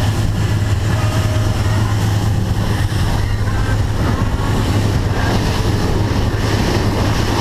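Fishing boat running at speed: a steady low outboard engine drone under the rush of wind buffeting the microphone and water against the hull.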